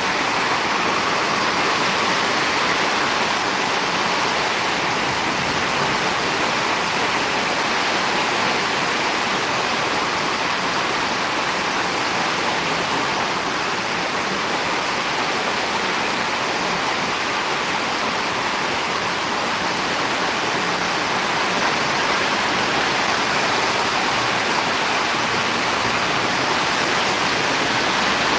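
Steady rushing noise of a storm, rain and wind, holding an even level with no single drops or gusts standing out.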